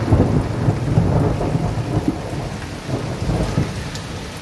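Heavy rain pouring onto a street, with a low rolling rumble of thunder that is loudest in the first second or two and then eases off.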